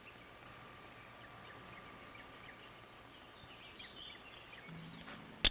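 Faint outdoor ambience with scattered small bird chirps over a faint steady tone, and a single sharp click near the end.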